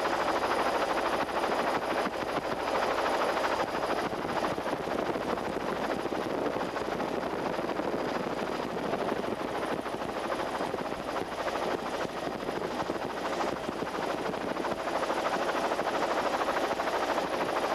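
Helicopter engine and rotor noise, a steady dense rush with no pauses, picked up by the camera's microphone during the flight.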